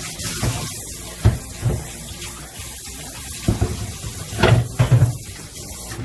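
Kitchen tap running water, with several dull knocks and clunks, the loudest cluster about four and a half seconds in.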